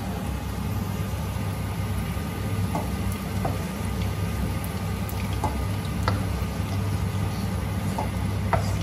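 Tofu frying in hot oil, a steady sizzling and bubbling over a low steady hum, with a few light clicks of a utensil against the pan as the pieces are lifted out.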